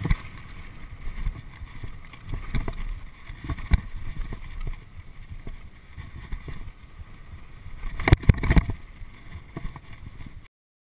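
Mountain bike ridden fast down a dirt trail: wind buffeting the action camera's microphone over tyre roar and the rattle of the full-suspension Specialized FSR, with sharp knocks from bumps, a cluster of them about eight seconds in. The sound cuts off suddenly just before the end.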